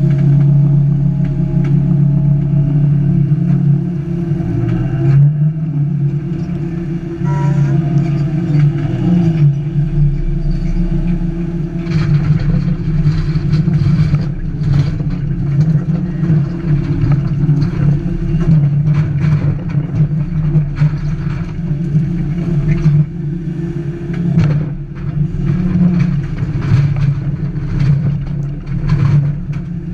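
Diesel engine of a Hyundai 380 long-reach excavator running steadily at working revs. From about halfway through, many short knocks and clatters sound over it.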